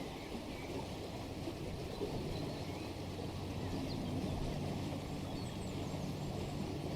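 Nature ambience sound effect: a steadily running stream with a few faint bird chirps.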